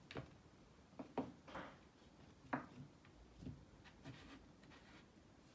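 Faint, scattered light knocks and crumbly scrapes as baked granola bars are lifted and set down on a wooden chopping board and stacked on one another.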